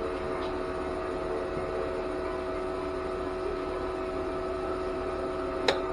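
Steady machine hum with a faint fan hiss, the sound of a flux-core wire welder's cooling fan and transformer running idle between tack welds. A single short click comes near the end.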